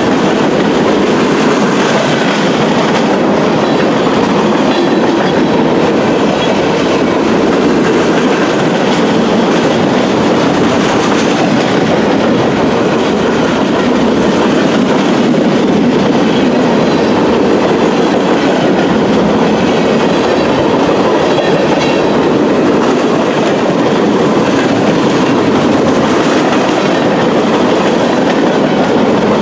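Empty intermodal well cars of a freight train rolling past close by: a steady, even noise of steel wheels on the rails.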